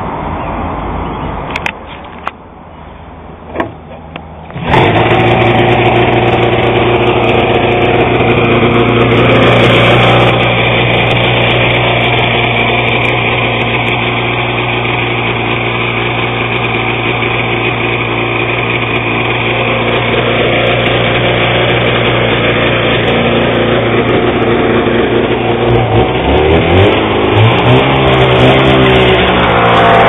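Vintage Ski-Doo Blizzard snowmobile's two-stroke engine starting about four and a half seconds in, then running at a steady idle. Near the end it is blipped up and down in a few short revs.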